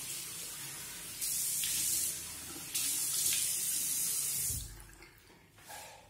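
Bathroom tap running into the sink while water is splashed onto the face to wet it before shaving; the rush of water jumps louder and softer in steps, then stops about four and a half seconds in.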